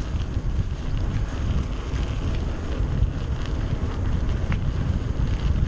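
Wind buffeting the action camera's microphone while riding a mountain bike downhill, a steady low rumble and flutter over the tyres running on the trail, with a couple of faint clicks.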